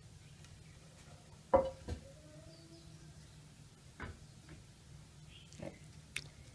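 A few sharp knocks of crockery being handled, a ceramic plate and utensil. The loudest comes about one and a half seconds in with a quick second one, then fainter taps later.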